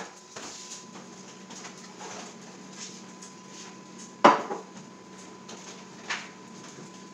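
Grilled cheese sandwiches frying in butter and oil in a pan, a faint sizzle with small crackles. A loud sharp clank with a short ring about four seconds in, and a softer one about six seconds in.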